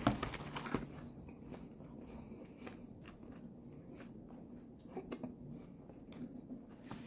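A person biting into and chewing a meatball sandwich with potato chips layered in it: a few sharp crunches in the first second, then quieter chewing with scattered small crunches.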